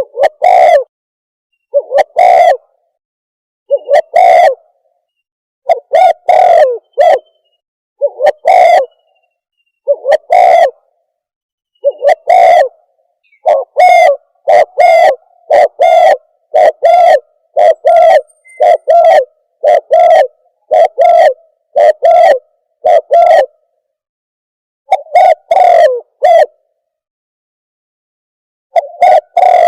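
Terkuku bird lure call played back loud: short, low hooting coo notes repeated in pairs and runs, about two notes a second in the middle stretch, with brief pauses between groups near the end.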